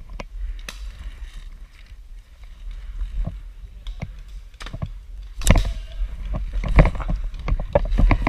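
Low rumble of movement and handling on a head-mounted camera, with a series of sharp knocks and clicks that come more often and louder in the second half.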